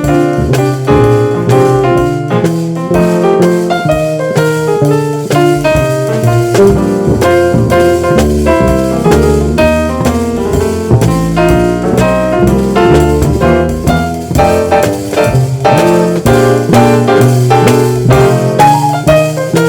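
Jazz trio playing: keyboard carrying melody and chords over a bass line and drum kit.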